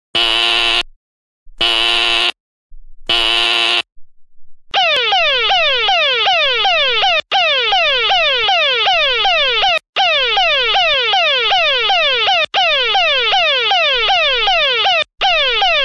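Synthesized emergency-alert tones. First come three short harsh buzzes about a second and a half apart. Then a loud alarm tone starts, sweeping downward in pitch about three times a second, cut by a brief gap every couple of seconds.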